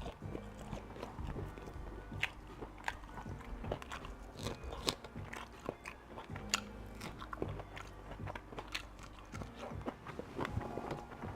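A person chewing and biting breakfast food close to the microphone, with many short, irregular crunches and wet clicks of the mouth.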